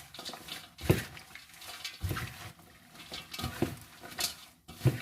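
Gloved hands mixing chopped roast chicken and other ingredients in a large bowl: irregular soft slaps and rustles, with a sharper knock about a second in and a few more through the rest.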